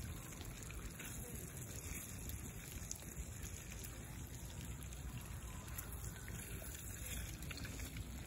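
Open campfire burning under a cast-iron skillet, a steady low rush with faint crackles, and meat sizzling in the pan as it is turned with metal tongs.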